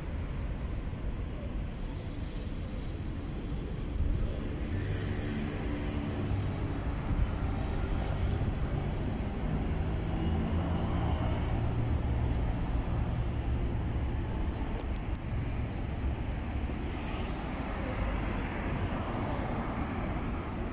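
Road traffic: cars passing with steady engine and tyre noise. The engine of one vehicle swells and fades through the middle.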